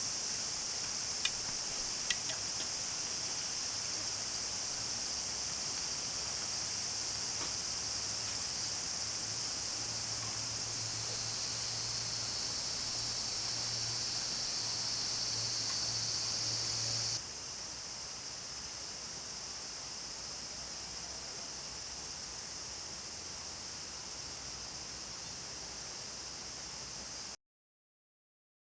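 Steady, high-pitched chorus of insects chirring, with two sharp clicks about one and two seconds in. About two-thirds of the way through it drops abruptly to a quieter chorus, and it cuts out to silence near the end.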